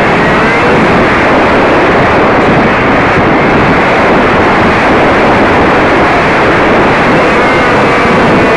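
Loud, steady rush of wind and propeller noise on a camera riding on a flying RC plane. Near the end the motor's whine comes through, its pitch wavering.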